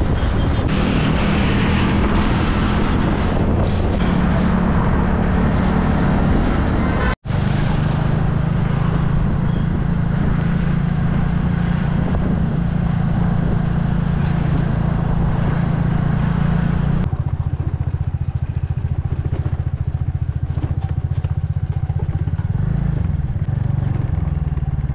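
A vehicle engine running steadily, with a brief break about seven seconds in and an abrupt change in its sound around seventeen seconds in.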